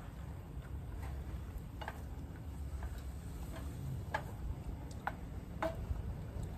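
A spatula clicking and scraping against a frying pan as diced sweet potatoes are stirred: four or five sharp, irregularly spaced clicks over a low steady rumble.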